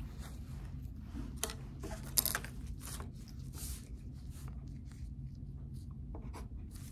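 Pencil scratching on paper as notes are written, with a few light clicks and taps; the sharpest comes about two seconds in. A steady low room hum runs underneath.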